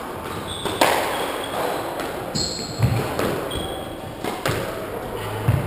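Squash ball being served and rallied: several sharp smacks of racket on ball and ball on the walls, echoing in the squash court, with short shoe squeaks on the wooden floor.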